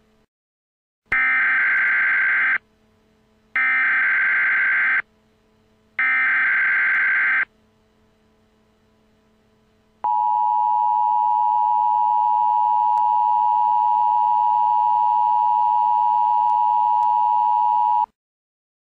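Emergency Alert System alert opening: three bursts of SAME header data tones, each about a second and a half long with short gaps between, then the steady two-tone EAS attention signal held for about eight seconds before cutting off.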